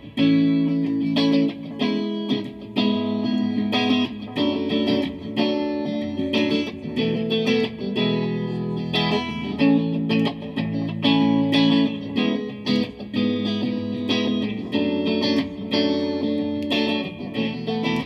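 Live instrumental song intro: a guitar, sounding electric with effects, playing a repeating chord pattern of picked and strummed notes, with no singing yet.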